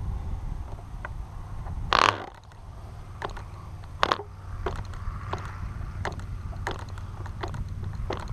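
Cox RR1 .049 glow engine being started and not yet catching: irregular sharp clicks and pops about every half second to second, the loudest a short burst about two seconds in, over a low steady rumble.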